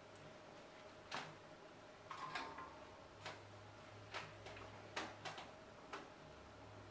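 Faint, scattered clicks and taps, about seven in all, of small hand tools and a circuit board being set down and picked up on a cork work mat while getting ready to solder.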